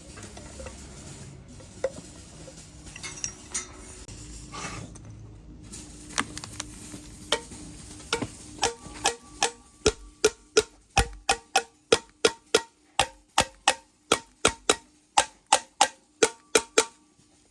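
Metal being struck repeatedly in engine repair work. A few scattered light taps come first, then from about halfway a steady run of sharp ringing strikes at about three a second.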